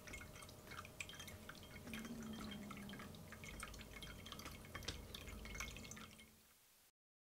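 Pet drinking fountain running, a faint scatter of small drips and trickles over a low steady pump hum. It fades out near the end into silence.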